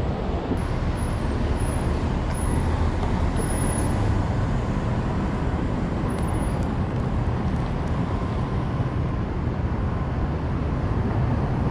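Steady city street traffic noise, mostly a low rumble of passing vehicles.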